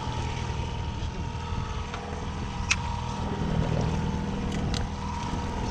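Fishing boat's outboard motor running steadily with a low hum, with a sharp click about halfway through and two more close together near the end.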